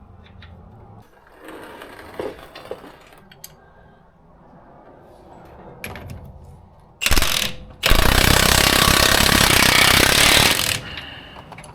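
Impact wrench running in a large suspension link bolt: a short burst, then about three seconds of continuous hammering.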